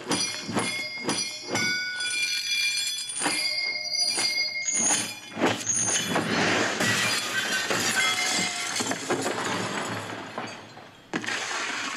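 A film's fight-scene soundtrack playing through an ASUS Cine5 single-bar surround speaker: a run of sharp hits and crashes over high ringing tones.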